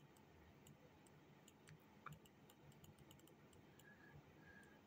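Near silence: quiet room tone with faint, irregular clicks from hand-writing on a digital board, and a faint short high tone twice near the end.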